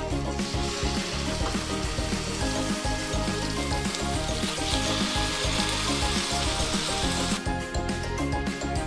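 Chopped boneless chicken sizzling as it goes into hot mustard oil in a frying pan. The sizzle starts about half a second in and cuts off near the end.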